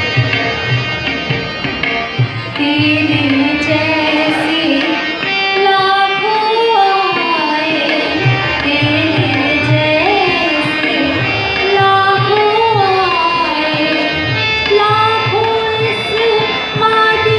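A woman sings a Hindi devotional song (bhajan) live through a PA, with harmonium and hand-drum accompaniment. The drum strokes keep a steady rhythm under the held harmonium notes, and the voice comes in about two and a half seconds in.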